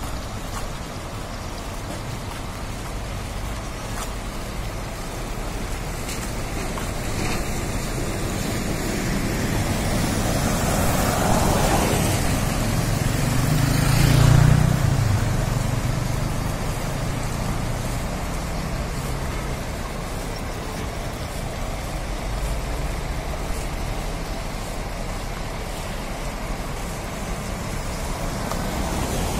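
Road traffic passing on a wet road, with tyre hiss and engine noise. One vehicle passes close and loud about halfway through.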